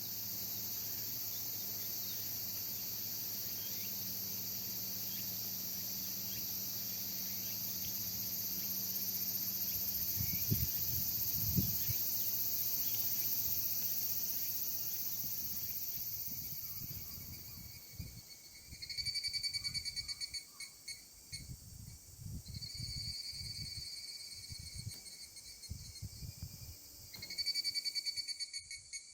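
Summer insects singing: a steady high-pitched chorus, then from about two-thirds of the way through a rapidly pulsing high trill in repeated phrases. Low rumbles of wind or handling noise come and go beneath.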